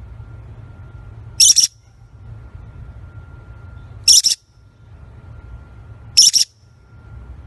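Small parrot giving three short, high-pitched chirping calls about two seconds apart, each a quick double or triple pulse, over a low steady hum.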